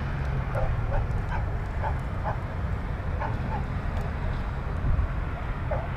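A dog barking repeatedly in short yelps, over a steady low rumble.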